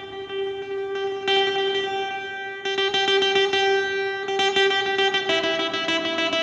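Background music led by plucked guitar: ringing chords that change every second or so.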